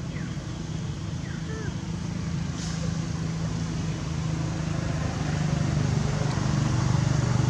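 A motor vehicle's engine running steadily, growing gradually louder as it nears.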